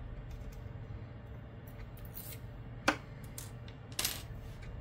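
Hex key and small screws being handled while the hotend mounting screws come out of a 3D printer toolhead: a sharp click about three seconds in, then a short scrape a second later, with a few faint ticks over a steady low hum.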